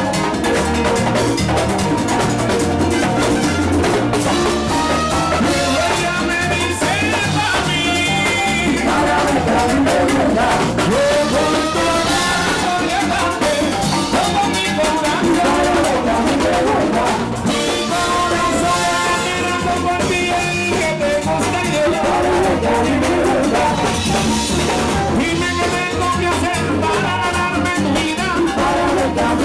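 Live plena music: a band with panderos (round plena frame drums), congas, drum kit and horns playing a steady beat, with voices singing over it.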